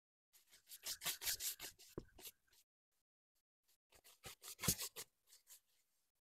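Stiff-bristled plastic dish brush scrubbing wet wooden boards in quick back-and-forth strokes. The strokes come in two bursts with about a second's pause between them.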